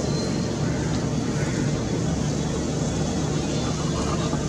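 Jet engines of a Boeing 777F freighter at climb power, a steady low rumble as the aircraft climbs away after takeoff.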